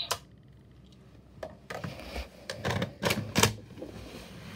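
Plastic clicks and clatter from handling a Kamen Rider DX toy belt and its key: a click at the start, another about a second and a half in, then a run of quick clicks, the loudest near the end.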